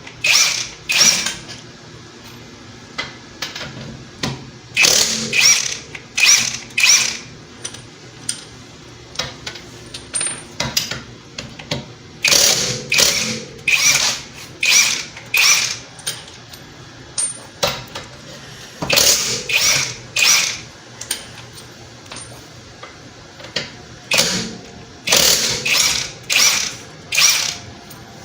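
Cordless impact wrench in reverse loosening car lug nuts: a series of short bursts of rapid hammering, about one every two to three seconds, with quieter steady motor running between them as the nuts spin off.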